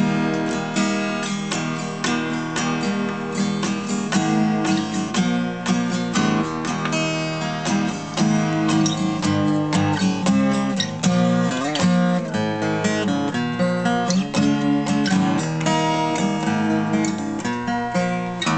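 A freshly completed handmade all-spruce 000-size acoustic guitar played with the fingers, mixing picked notes and strummed chords in a continuous passage. Its builder calls the tone crisp and balanced from treble to bass.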